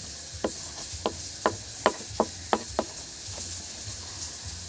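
Spoon clicking against the side of a bowl while stirring a thick mixture of talc and silicone glue: a quick run of sharp knocks, about two or three a second, that stops a little before three seconds in.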